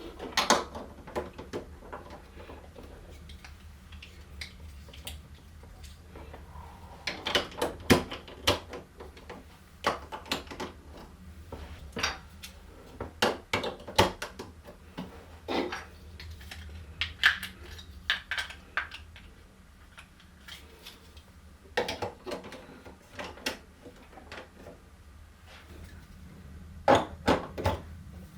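Hard plastic marble run pieces clicking and clattering, in irregular bursts of sharp knocks with pauses between.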